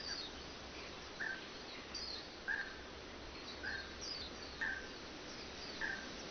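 Birds calling in a forest: a short call repeated about once a second, with higher, fainter chirps between, over a steady background hiss.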